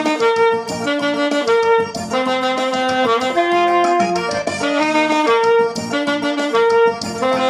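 Alto saxophone playing a forró melody in a series of held notes that change pitch about every half second to a second, over a steady rhythmic accompaniment.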